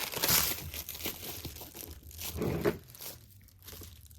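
Packaging crinkling and tearing as it is pulled apart, with louder bursts just after the start and again about two and a half seconds in.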